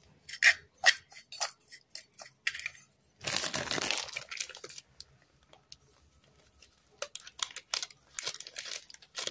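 A metal spoon stirring crushed roasted peanuts and sugar in a ceramic bowl, making irregular clicks and scrapes. About three seconds in there is a louder rustling, crunching scrape lasting over a second, and more clicks come near the end.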